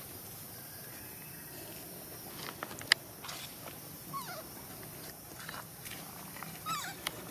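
Baby monkey giving short calls that fall in pitch, one about four seconds in and another near the end. A sharp click about three seconds in is the loudest sound.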